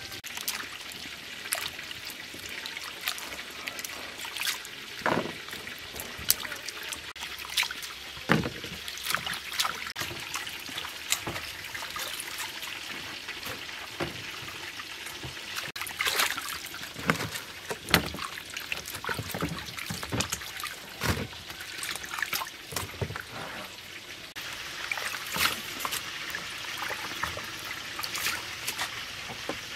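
Hands washing lettuce leaves in a basin of water: splashing, trickling and dripping, with many scattered light clicks and knocks as leaves are lifted out and set in a plastic basket.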